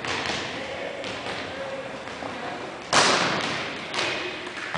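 Volleyball thuds echoing in a gymnasium: a few sharp hits, the loudest about three seconds in, with another about a second later.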